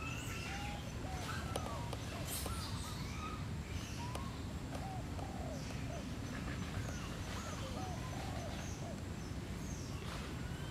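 Many short, arching chirp-like animal calls, repeating throughout, over a steady low rumble of outdoor background noise.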